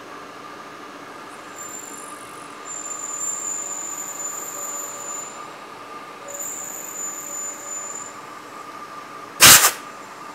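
Milling machine spindle running with a steady whine while a 1/4-inch end mill cuts a radius into a steel part swung on a pivot fixture. The cut gives a high-pitched squeal in three stretches of one to two and a half seconds. Near the end comes a short, loud burst of noise.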